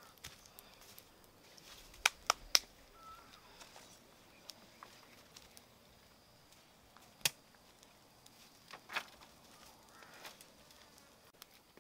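Sharp knocks of wood on wood as stakes and sticks are handled: three in quick succession about two seconds in, then two single knocks later. A faint bird chirp is heard between them.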